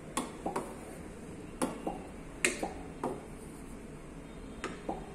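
Stylus tapping on the glass of an interactive flat-panel touchscreen: about nine sharp taps, mostly in quick pairs, as it draws and selects tools.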